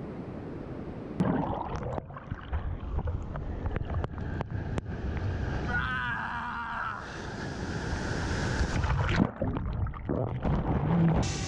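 Surf breaking and water sloshing and splashing against a camera held at the water surface, with sharp clicks of water hitting the housing. Near the end the camera dips under and the sound turns muffled.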